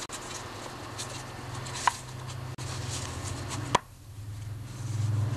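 Plastic handling noise as a lawnmower air filter's plastic cover is pressed back onto its cartridge, with two sharp clicks, about two seconds in and just before four seconds, over a steady low hum.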